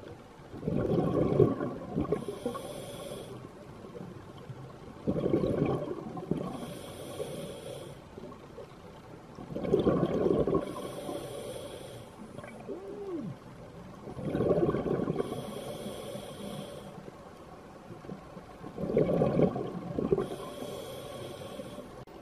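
Scuba diver breathing through an open-circuit regulator underwater: a burst of exhaled bubbles rumbling past the housing, then the hiss of the demand valve, five breaths about four and a half seconds apart.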